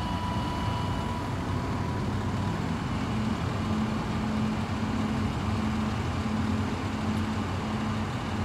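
Road traffic at an intersection: vehicles passing and a truck's diesel engine running, with a low hum that pulses on and off about once a second from about three seconds in.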